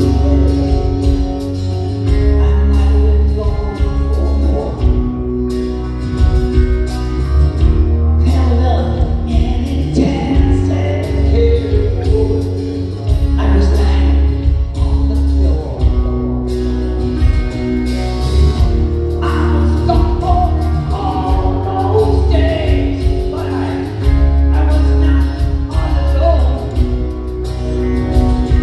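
Live rock band playing a slow song over a theater PA, sustained bass notes and chords under a male lead vocal, heard from the audience seats.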